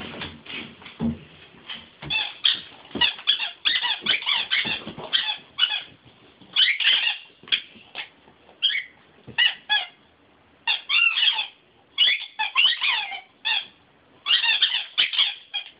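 Rubber squeaky toy squeaking over and over as a German Shepherd chews it, in quick clusters of squeaks with short pauses between.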